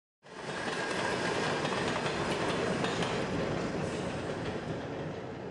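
New York City subway train passing along an elevated line: a steady noise of wheels on rails that cuts in suddenly and fades away near the end as the train clears the station.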